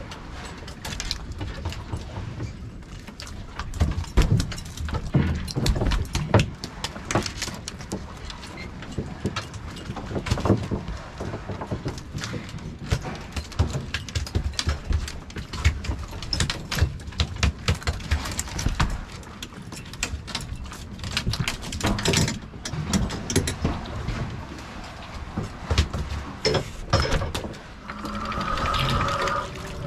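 Irregular knocks and slaps on a fishing boat's deck as black rockfish are unhooked from a jig line: the fish flop on the deck hatches and the hooks and gear clatter, over a steady low rumble. A brief steady tone comes in near the end.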